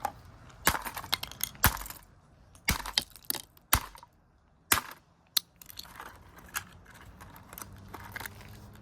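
The plastic casing of a Timex radio alarm clock being smashed and broken apart: a string of sharp, irregular knocks and cracks, about one a second, with rustling handling noise between them.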